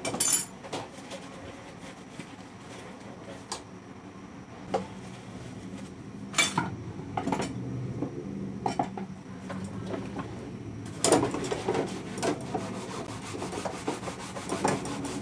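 Dishes being hand-washed at a kitchen sink: scrubbing and rubbing with scattered clinks and clatters of metal utensils and a stainless bowl. The scrubbing and clattering grow busier in the last few seconds as a plastic cutting board is handled in the sink.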